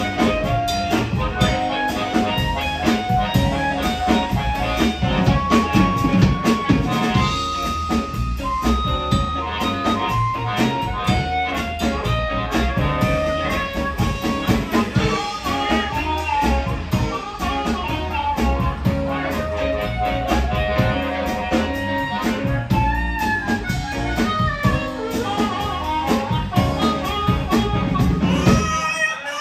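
Live blues band playing an instrumental break: amplified harmonica cupped to a vocal microphone plays held, bending lead notes over guitar, upright bass and drums.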